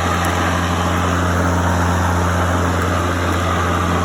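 Ryobi 40V brushless battery lawn mower running, with a steady low electric-motor hum and the rush of air from its spinning blade.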